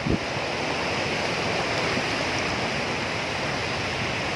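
Steady rush of sea surf along the shoreline.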